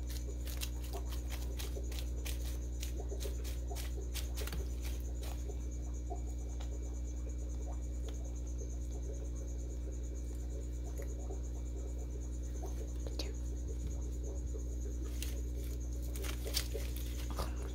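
Blue-tailed monitor lizard crunching a quail egg: a run of small, dry clicks and crackles that thins out after about six seconds, with a few more near the end. A steady low hum runs underneath.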